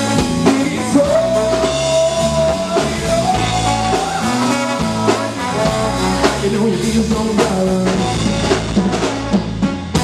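Live band playing: trombone carrying the lead line, with a long held note about a second in, over electric guitar, bass guitar and a drum kit.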